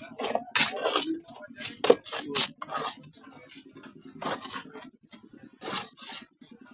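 Hand tools scraping and knocking on building material in irregular short strokes, with a faint low steady hum underneath.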